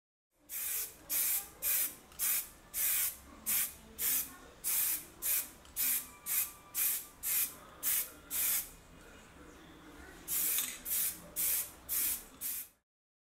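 Aerosol spray-paint can sprayed in about twenty short hissing bursts, roughly two a second, with a pause of about a second and a half two-thirds of the way through before a last run of five bursts.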